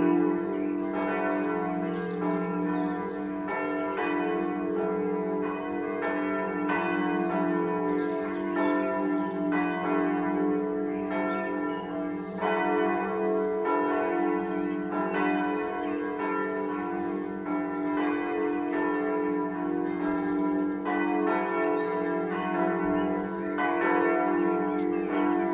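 Church bells of the Südkirche pealing: several bells ringing together, fresh strikes overlapping about once a second over a steady hum of lingering tones.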